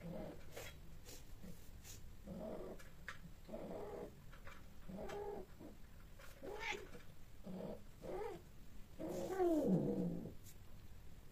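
Persian cats mating, with a cat yowling in short pitched calls about once a second. Near the end comes one longer, louder yowl that falls in pitch.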